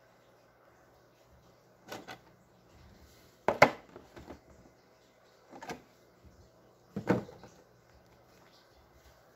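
Thin clear plastic dome being handled against a cardboard box: four short crinkling knocks, the loudest about three and a half seconds in.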